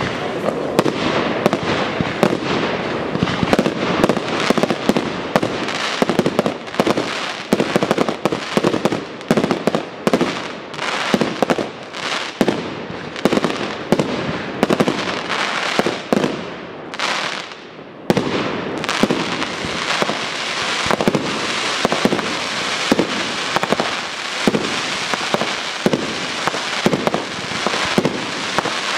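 Professional aerial fireworks display: a dense barrage of shells launching and bursting in rapid, overlapping bangs and pops. It thins out briefly about two-thirds of the way through, then starts again with a sudden loud burst.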